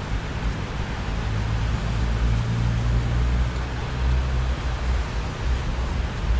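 Steady rain with a low rolling rumble of thunder that swells about two seconds in and eases off near five seconds.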